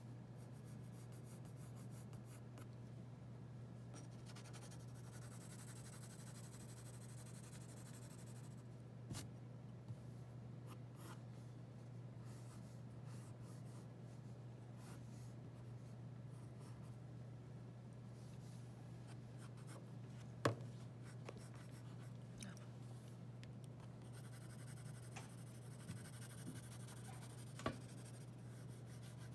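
Graphite pencil scratching across drawing paper in short strokes, with denser quick hatching strokes near the end. A steady low hum runs underneath, and a few sharp clicks stand out, the loudest about two-thirds of the way through.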